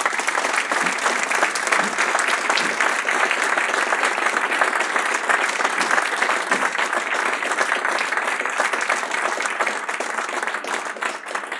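A seated audience applauding, dense and steady, thinning slightly near the end.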